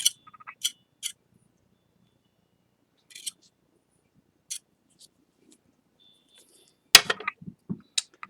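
Light, sharp clicks and taps of a palette knife and pieces of a broken ceramic plate being handled, with a louder clatter of hard knocks about seven seconds in.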